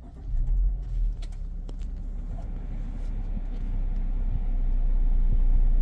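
Honda Elevate's 1.5-litre four-cylinder petrol engine starting up, with a couple of louder bumps in the first second as it catches, then idling with a steady low hum that grows slightly louder. Heard from inside the cabin.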